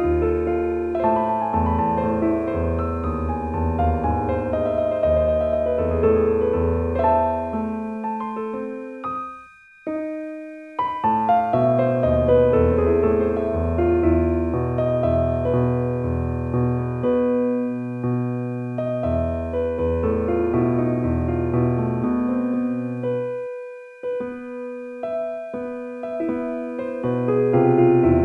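Relaxing piano music: sustained notes over held low bass tones, with a brief break in the playing about a third of the way in.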